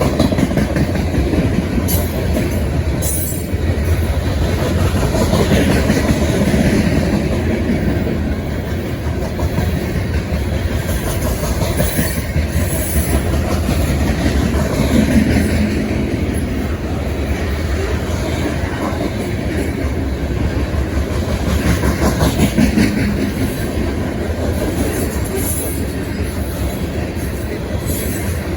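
Empty coal train of freight cars rolling past, wheels clattering steadily over the rail joints, with a few brief high wheel squeals.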